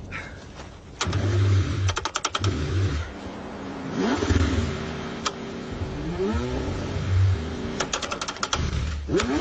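Car engine cranking in repeated bursts, with the pitch rising and falling as it struggles in the cold. Rapid clicking comes twice, about two seconds in and again near the end.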